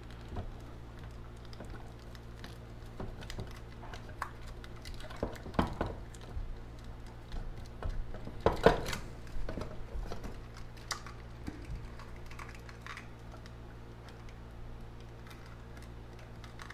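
Hand wire cutters (a crimper/stripper tool) snipping and clicking on a lamp's insulated wires, with scattered small clicks of handling; the loudest snips come about eight and a half seconds in, over a faint steady low hum.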